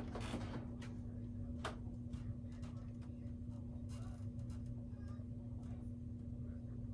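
Quorum Pinwheel ceiling fan running, its motor giving a steady low hum over a low rumble, with scattered light ticks and clicks, one sharper than the rest about one and a half seconds in.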